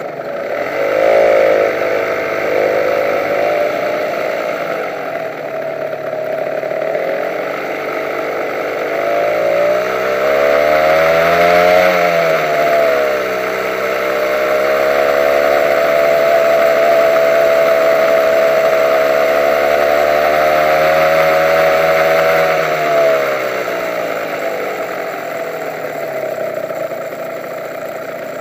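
Honda NSR150 two-stroke single-cylinder motorcycle engine pulling away from a stop. It rises in pitch about a second in and climbs again to a peak about twelve seconds in, then drops. It holds a steady pitch while cruising and eases off in the last few seconds.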